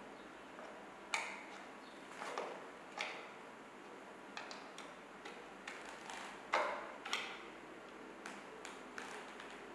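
Irregular sharp clicks and taps, about one or two a second, as a wooden table leg is screwed onto the end of a metal support bracket. The loudest knock comes a little past the middle.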